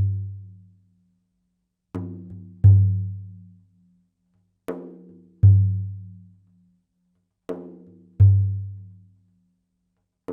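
Slow music of a deep, ringing drum alone, beaten in pairs: a lighter stroke, then about half a second later a heavy low stroke that rings out for about a second, the pair coming round every two and a half to three seconds.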